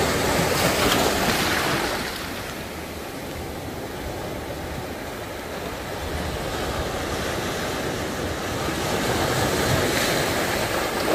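Sea waves breaking over shoreline rocks and washing back. One wave breaks in the first two seconds, the water surges more quietly through the middle, and another wave breaks near the end.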